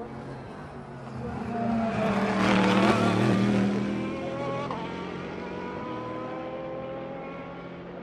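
A race car's engine passing at speed down the straight. It grows louder to its peak about three seconds in, drops in pitch and fades as the car goes away.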